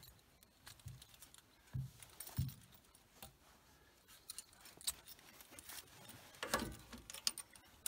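Quiet handling noise from a plastic sap hose and its fitting: scattered light clicks and a few soft knocks, with a louder cluster of knocks and clicks about six and a half seconds in.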